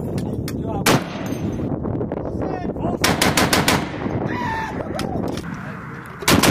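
M2A1 .50-calibre heavy machine gun firing: a single shot about a second in, a short rapid burst of about seven rounds around three seconds in, and another burst starting near the end.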